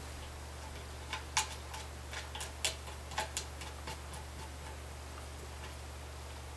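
A run of light, irregular clicks and ticks from guitar strings being handled at the locking tuners on the headstock, over a steady low electrical hum.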